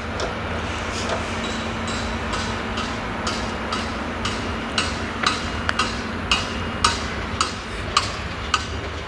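New Holland CX combine harvester with an eight-row Geringhoff corn header running while harvesting maize: a steady low engine rumble, with a regular metallic ticking about twice a second that gets louder about halfway through.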